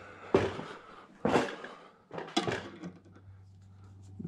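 Three short knocks and clatters about a second apart, handling noise as a screwdriver is fitted into the garage door opener's limit adjustment screw, over a steady low hum.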